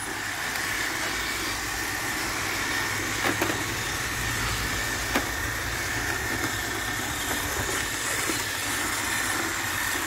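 iRobot Roomba 780 robot vacuum running: the steady whir of its vacuum motor and brushes with a constant high whine, and a couple of brief clicks a few seconds in.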